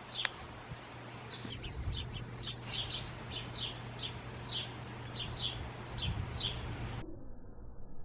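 House sparrows chirping, many short chirps in quick succession, over a low steady hum. About a second before the end the sound cuts off abruptly to a muffled, duller background.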